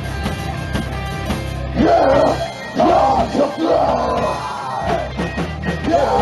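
Live rock band playing with guitar and drums. About two seconds in, the low end thins out and loud yelled, screaming voices take over above the band.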